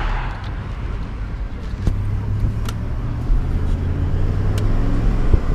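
Car engine running at low speed, a steady low hum with a few sharp clicks or knocks.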